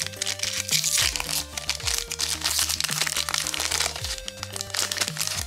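A foil trading-card booster pack wrapper crinkling and crackling as it is handled and opened, stopping about four seconds in, over background music with steady sustained notes.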